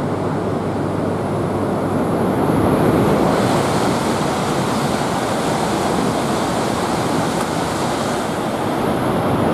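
An E5-series Shinkansen running through the station on the centre track. Its rushing, hissing whoosh swells about three seconds in and fades near the end, over the steady hum of the trains standing at the platforms.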